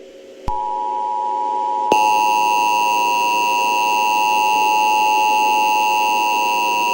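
Emergency Alert System attention tone: a loud, steady electronic tone starts about half a second in, and a second, higher tone joins it about two seconds in, both held unchanging.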